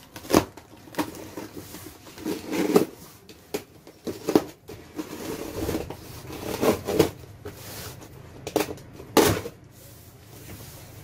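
Long cardboard carton being cut open with a box cutter and its flap pulled back: irregular rustling and scraping of cardboard with sharp knocks.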